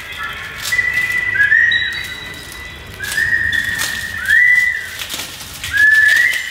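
A series of about five high whistle-like notes, each sliding up into a held pitch and lasting around half a second to a second, with short gaps between them. Sharp crackling clicks are scattered among the notes.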